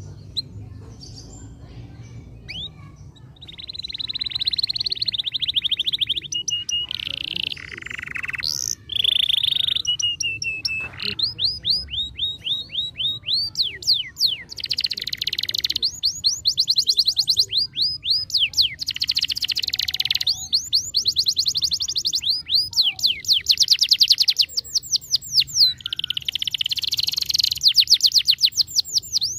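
Domestic canary singing: a long song of rapid trills and rolls, fast repeated sweeping notes with short buzzy passages, starting about three and a half seconds in.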